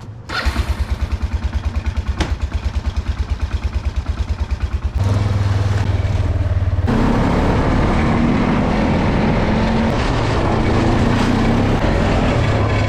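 A small vehicle engine starts and idles with an even low pulse. About five seconds in it picks up, and from about seven seconds it runs louder and steadily as it drives off.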